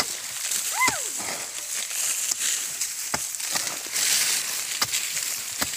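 A hand digging tool scraping and chopping into dry soil, roots and leaf litter, with a sharp knock every second or two. A short call that rises then falls comes about a second in.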